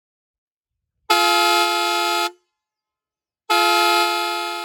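Roots HexaTone car horn sounding a steady chord of several tones in two blasts of a little over a second each, the second one fading slightly before it stops.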